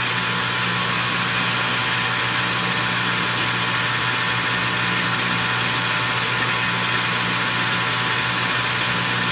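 Metal lathe running with a steady hum while a parting blade feeds in and cuts off a small bushing.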